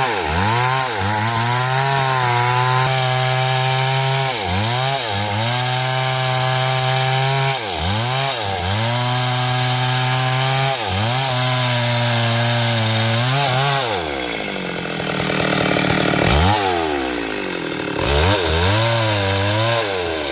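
Two-stroke chainsaw cutting hard coconut wood, its engine speed dipping and recovering every few seconds as the chain bites into the wood. About two-thirds of the way through, the saw drops toward idle and is then briefly revved twice.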